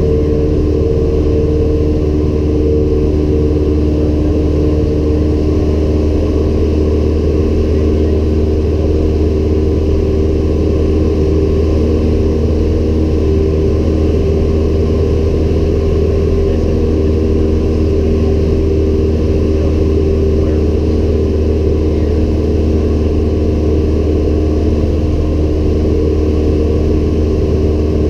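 Cabin drone of a Cessna 172M Skyhawk in flight: its four-cylinder Lycoming O-320 engine and propeller running steadily at a constant power setting, loud and even.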